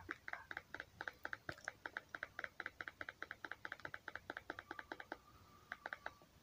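Rapid keyboard typing: a quick, even run of small clicks, several a second, for about five seconds, then a brief pause and a few more taps near the end.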